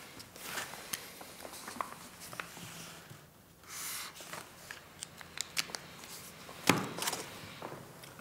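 Quiet paper handling at a desk: book pages rustling and shifting, a highlighter scratching across paper, and small taps and clicks, with one sharper knock near the end.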